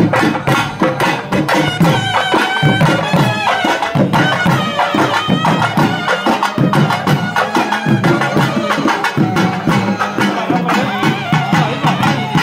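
A South Indian double-reed shawm with a flared metal bell playing a loud, wavering melody over fast, steady strokes on two-headed barrel drums: traditional Tamil temple band music.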